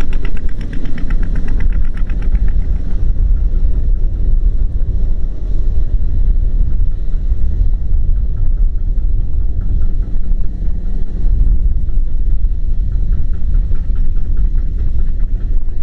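Two-wheel walking tractor's single-cylinder diesel engine idling with a steady low thrum, a fast clatter on top fading out about two seconds in.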